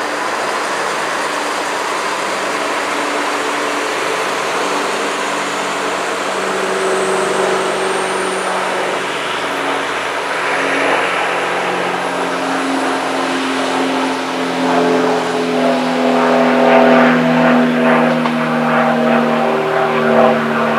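Alstom Coradia LINT 41 (DB class 648) diesel railcar's engines running under power as it pulls away, a steady drone whose note grows louder and climbs a little in the second half.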